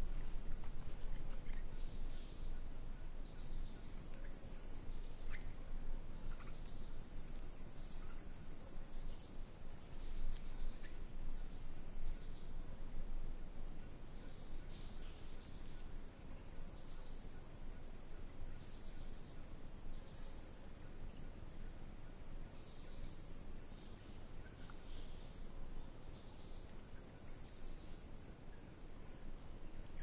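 Tropical rainforest insect chorus: a steady high-pitched drone at two pitches, with shorter chirping pulses breaking in every second or so.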